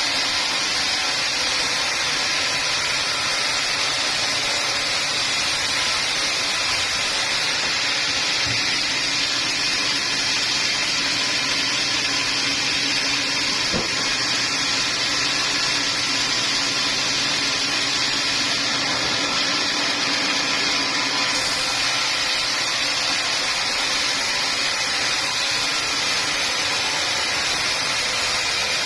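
Sawmill machinery running steadily, a loud, even machine noise that holds without a break.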